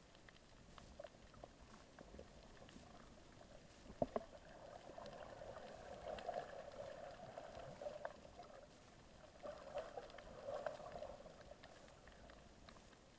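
Faint underwater ambience, muffled as if through a camera housing, with scattered small clicks and a sharp knock about four seconds in. A faint mid-pitched noise swells twice, in the middle and again near the end.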